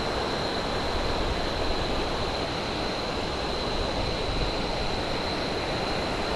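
Large waterfall cascade rushing steadily: a loud, constant roar of falling water with no break.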